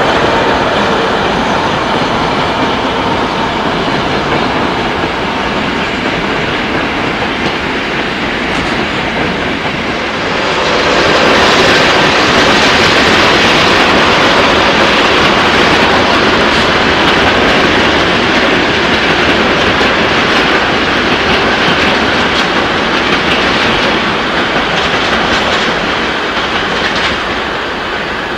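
Passenger trains rolling through a station: coaches and an electric locomotive passing, with the clickety-clack of wheels over rail joints and points. The sound grows louder and sharper, with a hint of wheel squeal, from about ten seconds in.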